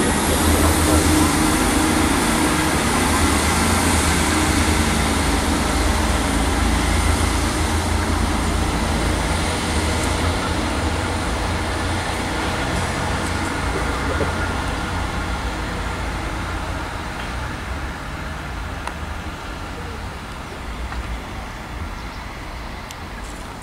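Class 158 diesel multiple unit pulling away, its diesel engines running steadily and fading as it moves off.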